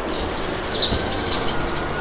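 Steady wind noise with small birds chirping over it, a cluster of high chirps just under a second in.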